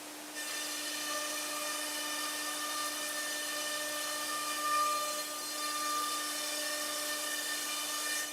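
Startech CN Plus CNC boring machine running its spindle: a steady high-pitched whine that starts about half a second in and cuts off at the end.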